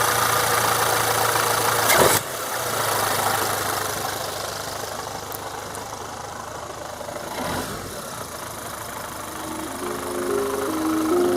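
Mk7 VW GTI's turbocharged four-cylinder engine idling steadily just after being started, with a single sharp knock about two seconds in, after which it sounds quieter. Background music comes in near the end.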